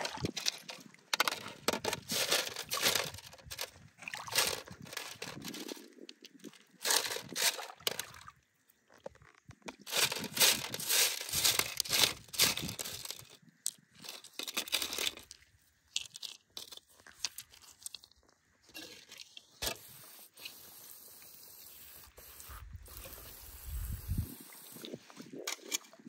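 Wet rough agate and quartz stones and gravel clattering and scraping against a perforated metal sieve as gloved hands rake and turn them, in bursts with short pauses.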